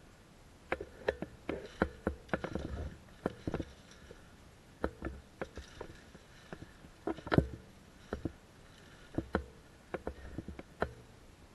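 Footsteps crunching through dry fallen leaves and sticks, irregular steps with clusters of rustling crunches and a sharp snap about seven seconds in.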